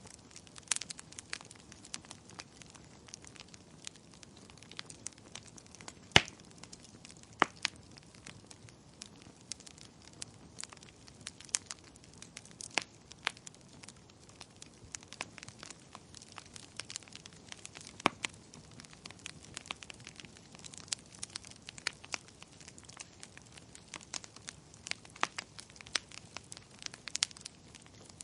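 Wood fire crackling in a fireplace: irregular sharp pops and snaps, several a second, over a faint low hiss, with one louder pop about six seconds in.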